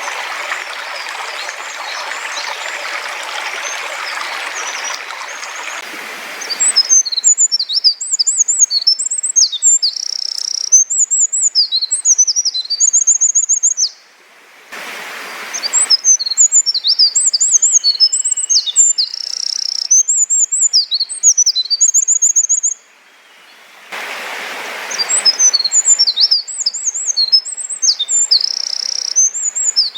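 A stream running for the first six seconds, then a Eurasian wren singing loudly: a long, fast song of high notes and trills, about seven seconds long, given three times in a row.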